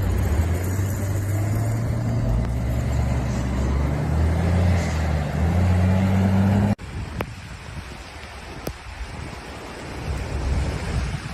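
A vehicle's engine running with a steady low hum and outdoor noise. About two-thirds of the way through it cuts off abruptly to quieter outdoor noise with a few faint clicks.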